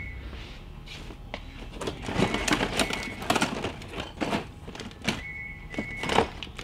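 Cardboard boxes and plastic-packaged items being rummaged through and handled: irregular rustling, crinkling and light knocks and clunks.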